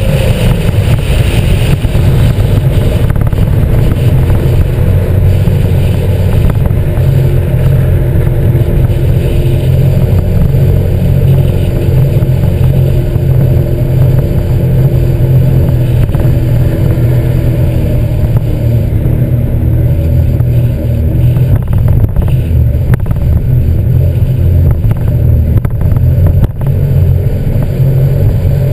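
Sea-Doo GTX 260 iS Limited personal watercraft under way, its supercharged Rotax three-cylinder four-stroke engine running loud and steady. It is heard through a GoPro suction-cupped to the craft.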